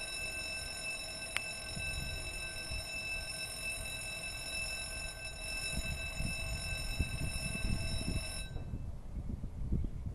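A steady, high-pitched electronic tone with several overtones, of the alarm or whine kind, that cuts off suddenly about eight and a half seconds in. One sharp click comes about a second and a half in, and low, irregular wind rumble on the microphone runs throughout, growing stronger in the second half.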